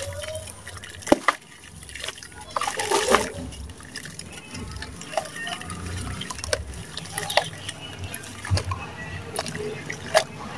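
Wet sand crumbled by hand into a basin of muddy water: dripping, trickling and splashing with scattered sharp crackles, and a louder burst about three seconds in.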